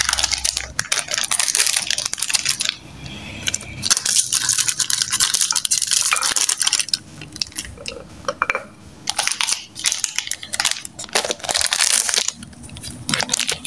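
Plastic biscuit packet crinkling and crackling as it is handled and opened, with biscuits crunching as they are broken up, in several spells of dense small crackles.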